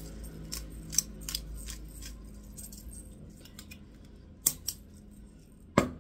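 Hand-held black pepper grinder being twisted, grinding peppercorns in a run of small irregular clicks, with a few sharper, louder clicks about a second in, around four and a half seconds in and near the end.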